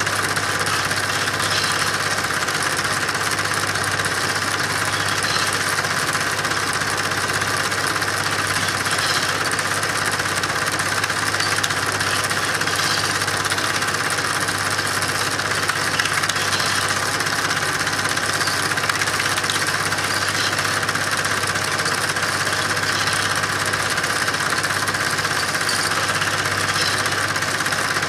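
Steady mechanical running noise with a constant low hum, unchanging throughout, with no engine revving up or cars passing by.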